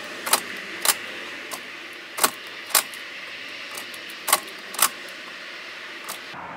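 Ignition key of a Mercedes Vito 108 CDI van being switched off and on again and again: about eight sharp clicks, some in pairs, with the key ring jangling. The diesel engine does not crank or start, the intermittent no-start fault that the garage put down to the starter motor.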